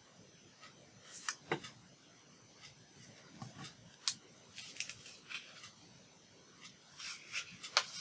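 Paper pieces being handled on a craft mat: light rustling, scraping and small taps as hands press and shift layered paper on a journal page. The sounds come in short clusters, about a second in, around four to five seconds in, and near the end.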